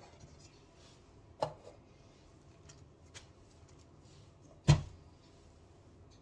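Two sharp knocks as the parts of an electric juicer are handled and fitted, one about a second and a half in and a louder one about three-quarters of the way through, with a faint tick between them.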